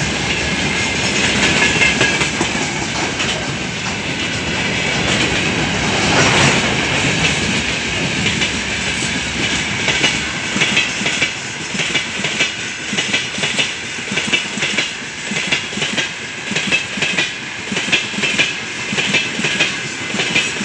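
Wheels of a long freight train of open-top gondola wagons rolling past on the rails: a steady rumble with clickety-clack over the rail joints, which turns into a distinct rhythm of clacks, about one a second, in the second half.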